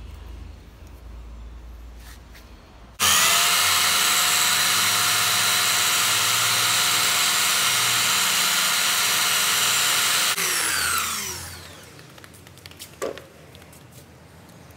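Belt sander switched on about three seconds in, running steadily with a high whine, then switched off after about seven seconds and winding down with falling pitch. A short click follows soon after.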